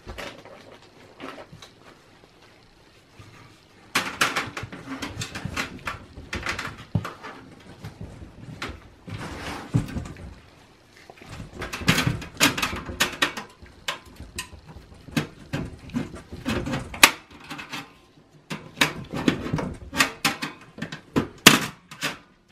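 A screwdriver clicking, scraping and knocking against the steel chassis of a small-form-factor desktop PC as a metal backplate bracket is pried loose. The clicks come in irregular runs, and the loudest sharp knocks fall near the end.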